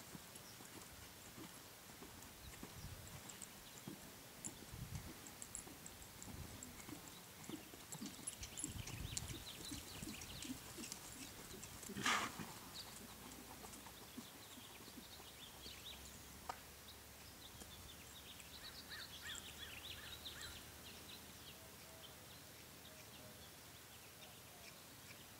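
Soft hoofbeats of a horse trotting and cantering on a sand arena, faint, with one short louder noise about halfway through.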